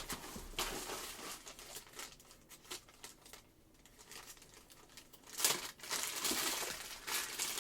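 Packaging crinkling and rustling as it is handled, in irregular crackly bursts, quieter for a spell in the middle and louder again past the halfway point.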